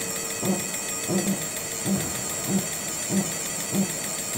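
Electric drill turning a geared pull-back rig, with a steady high whine and a regular low knock about every two-thirds of a second.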